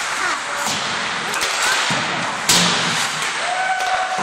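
Steady scrape and hiss of skates on ice with scattered clicks of sticks and pucks, and one loud, sharp crack of a hockey puck being shot about two and a half seconds in.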